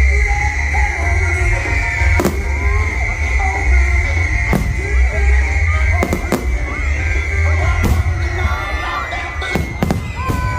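Fireworks display: about seven sharp bangs at irregular intervals over a continuous low rumble, with music playing alongside.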